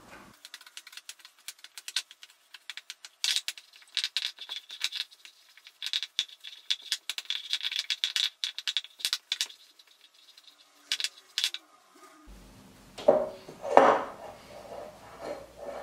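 Spatula scraping and clicking against a glass mixing bowl as stiff cocoa biscuit dough is stirred, in quick irregular strokes, with a couple of louder knocks near the end.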